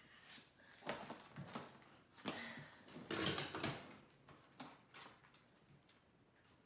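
Scattered knocks and rustling handling noises in a small room, loudest for about a second around three seconds in.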